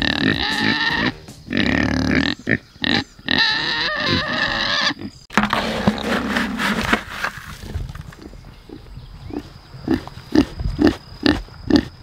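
Kunekune pigs squealing loudly for the first five seconds, then a feed scoop rustling through dry grain feed in a plastic bucket, followed by a run of short pig grunts about three a second.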